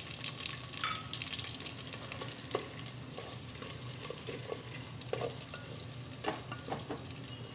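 Sliced onions and whole spices sizzling in hot mustard oil in a clay handi, with a ladle stirring them and clicking and scraping against the pot now and then.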